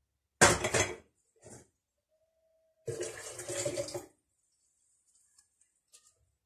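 Pickling cucumbers rattling and knocking inside a glass jar as the filled jar is handled and set down with the other jars, in two noisy bursts: one about half a second in and a longer one about three seconds in.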